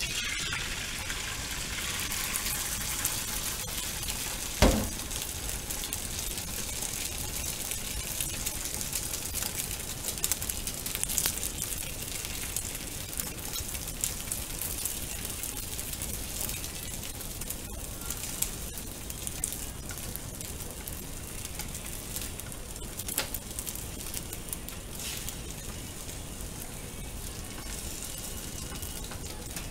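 Beaten egg sizzling in an oiled rectangular tamagoyaki pan over a gas flame, starting as the egg is poured in, with small clicks of chopsticks working the omelette. A single sharp knock about five seconds in.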